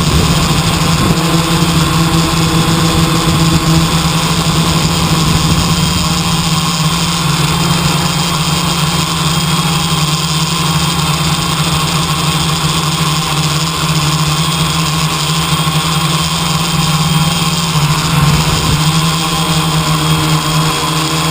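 A steady engine hum runs throughout at an even level.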